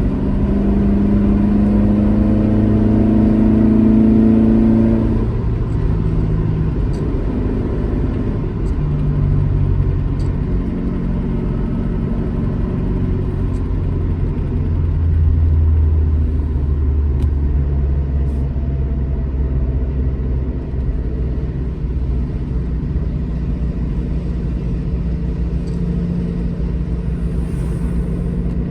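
Alfa Romeo GT Junior's twin-cam four-cylinder engine pulling hard, rising in pitch for about five seconds, then dropping at a gear change. It then runs on at changing revs over steady road rumble.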